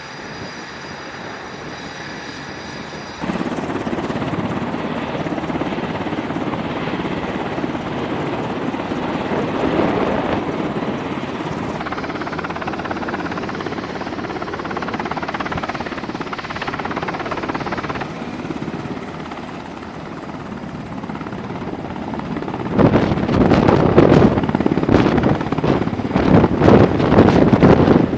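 MH-60R Sea Hawk helicopter running on a carrier flight deck: twin turboshaft engines and main rotor make a steady loud rumble and whine. In the last few seconds it gets louder, with a fast pulsing rotor beat as the helicopter lifts off.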